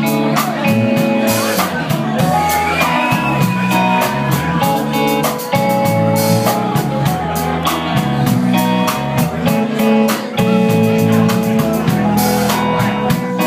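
Live band playing a blues number: guitar lines over a steady drum-kit beat, with no singing.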